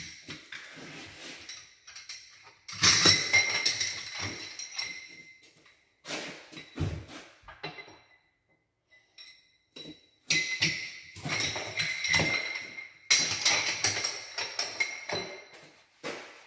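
Ceramic mosaic tiles clinking and rattling against one another and the countertop as they are handled. The sound comes in four bursts of a couple of seconds each, with a bright ringing tone.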